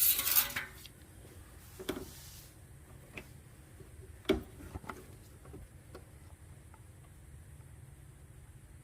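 A short scraping rush, then scattered light clicks and taps from handling parts in a car's engine bay during an oil top-up.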